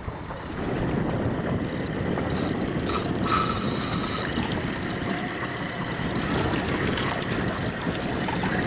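Wind buffeting the microphone over the rush of water and boat noise at sea, steady after it builds up about half a second in, with a brief brighter hiss around three seconds in.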